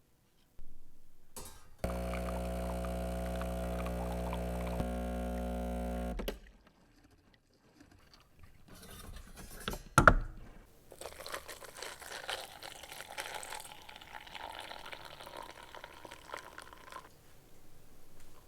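A small household appliance motor buzzes steadily for about four seconds, then cuts off. About ten seconds in there is one sharp knock, followed by several seconds of liquid pouring.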